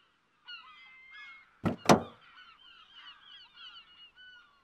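Birds calling with many short, quick chirps throughout, and two sharp knocks close together a little under two seconds in.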